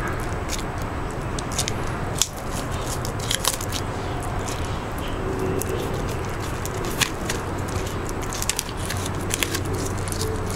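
Green iguana biting and tearing at hand-held collard green leaves: irregular crisp crackles and snaps of the leaves as it bites, over a steady low hum.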